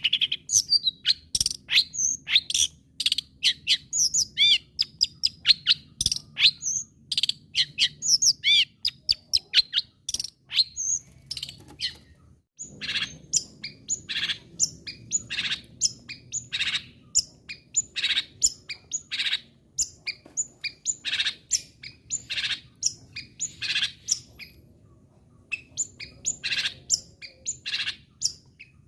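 Long-tailed shrike (cendet) singing vigorously: a fast run of short, sharp chirps and sweeping whistled notes, changing about halfway to harsher calls repeated evenly, roughly one and a half a second, with a short pause near the end.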